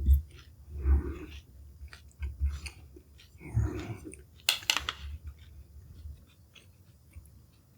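Food being chewed close to the microphone: irregular soft bites and crunches, with a short cluster of sharp clicks about four and a half seconds in.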